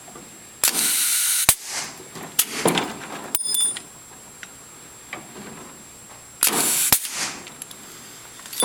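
Clip gun fastening hangers to a wire-mesh oyster cage: two loud hissing bursts about five seconds apart, each cut off by a sharp snap, with smaller metal knocks and a brief ringing ping between them.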